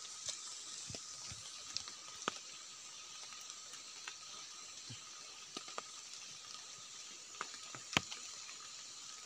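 Scattered faint snaps and clicks of wild mushroom stems being picked by hand from a cluster, the sharpest one near the end, over a steady high background hiss.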